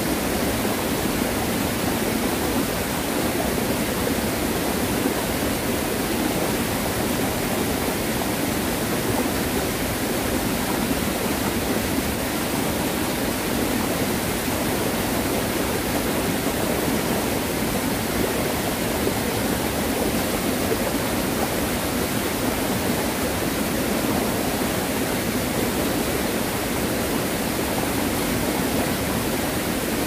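Mountain stream in spate after heavy typhoon rain, white water rushing loudly and steadily over rocks.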